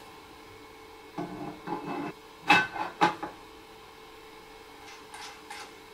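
Resin tank of an Elegoo Mars resin 3D printer being slid back into place. It scrapes for about a second, then gives two sharp knocks as it seats about halfway through, and there are a few faint clicks near the end as it is fastened down.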